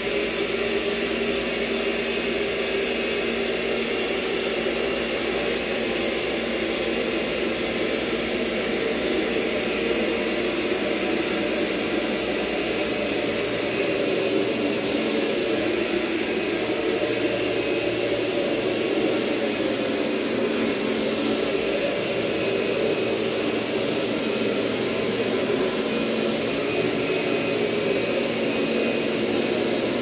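Kirby upright vacuum running with its carpet shampoo attachment, a steady loud motor whir as the machine is worked back and forth over the carpet.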